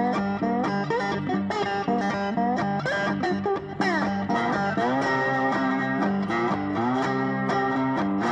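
Background music led by guitar: plucked notes over a steady bass line, with a few sliding notes about halfway through.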